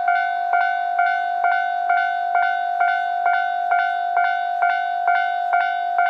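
Railway level-crossing warning bell ringing with the barriers down, a two-tone clang repeating about twice a second: the signal that a train is approaching the crossing.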